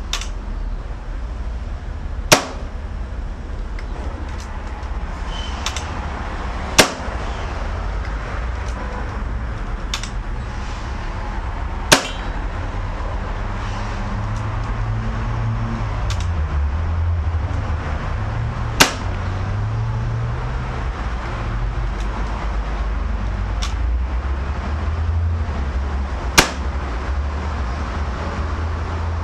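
Hatsan AT44 PCP air rifle firing five single shots several seconds apart, each a sharp crack, with fainter clicks between the shots. A steady low rumble runs underneath.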